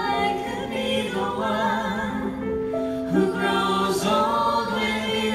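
A small vocal ensemble singing together in harmony, accompanied by a keyboard playing sustained chords.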